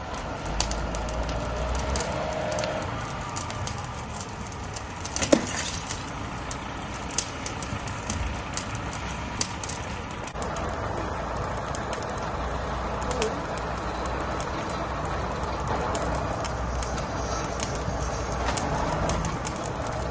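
Burning car crackling and popping, with one louder pop about five seconds in, over a steady low rumble and hiss.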